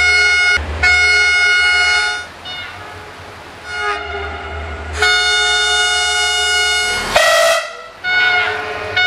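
A series of railway horn blasts, several separate toots of varying length with the longest lasting about two seconds, over a low engine rumble. A short, sharp rising screech cuts in about seven seconds in.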